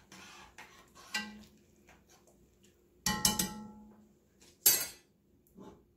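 A pot lid being handled on the stove: a few light clinks, then a loud clank about three seconds in that rings on briefly, and a sharp knock just under five seconds in.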